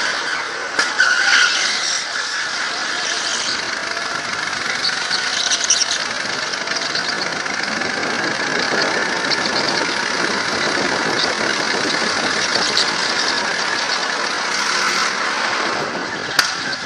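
Go-kart engine running at speed with tyres squealing through the corners on a smooth indoor track surface, heard close up from a helmet-mounted camera.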